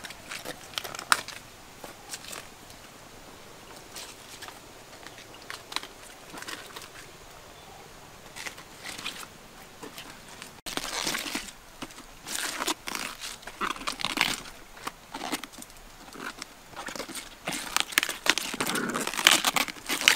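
Fresh cabbage leaves pulled and torn off the head by hand: crisp crinkling and snapping. Sparse at first, then denser and louder from about halfway.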